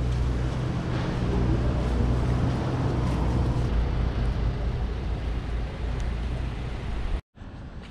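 Road traffic on a wet street: a vehicle engine's low steady hum under a hiss of tyres. The sound cuts out abruptly for a moment near the end.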